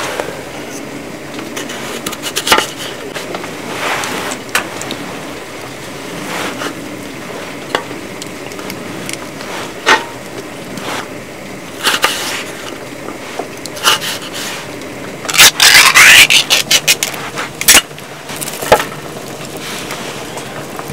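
Food being handled and cut on a wooden cutting board: scattered knocks, clicks and light scrapes. About three-quarters of the way through comes a louder run of scraping and clattering lasting about two seconds.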